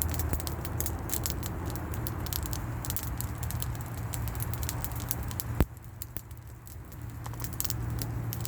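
Wood fire crackling, with many small irregular snaps and one sharp loud pop about halfway through, over a steady low hum.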